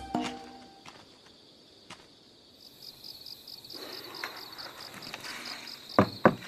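Crickets chirping in a steady pulsing rhythm, with a short quiet gap at the start. Near the end come two or three sharp knocks on a wooden door.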